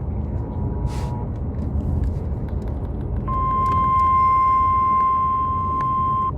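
Emergency Alert System attention tone from the car radio: one steady, high, single-pitched tone held for about three seconds, starting about three seconds in and cutting off sharply, heralding a tornado warning. Low road rumble inside the moving car underneath.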